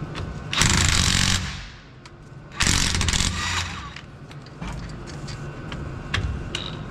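Power impact wrench run in two bursts of about a second each, spinning off bolts during a rear brake pad job.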